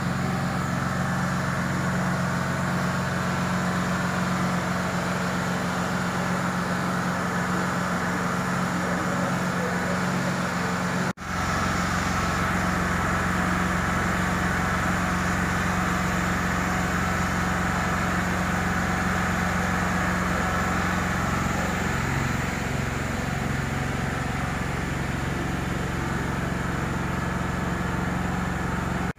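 A large engine idling steadily: a constant low drone with a steady hum, broken by a brief dropout about eleven seconds in.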